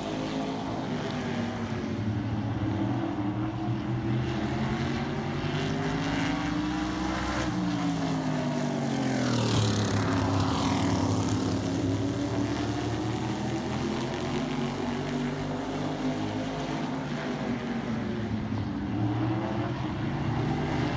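NASCAR Modified race car V8 engines running at speed around a short oval, their pitch rising and falling through the laps. About ten seconds in one car passes close by, louder, its engine note dropping as it goes past.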